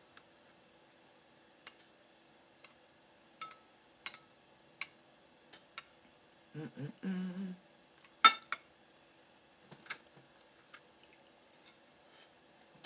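Metal spoon clinking and scraping against a glass bowl in about a dozen separate sharp clicks, the loudest about eight seconds in. A short low hum from the eater comes around seven seconds in.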